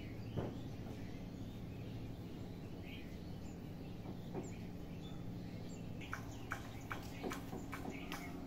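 Small birds chirping: short, high calls scattered at first, then coming quickly, a few a second, in the last couple of seconds, over a steady low hum.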